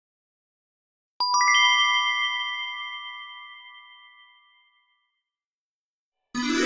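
Sparkle sound effect: a quick cascade of four or five bright, bell-like chime tones struck in rapid succession, then ringing and fading away over about three seconds. Near the end a new, denser shimmering sound begins.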